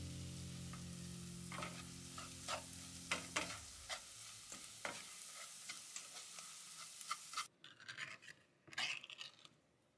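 Wooden spatula stirring and scraping an onion and spice paste frying in a pan, with a steady sizzle, as salt is worked in. About seven and a half seconds in the sizzle cuts off and a ring-pull can of diced tomatoes is opened with several sharp clicks.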